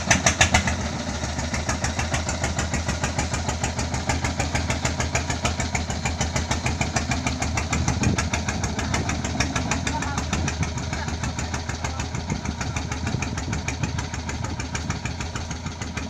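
A small engine idling with an even, rapid beat, a little louder in the first second just after it has started.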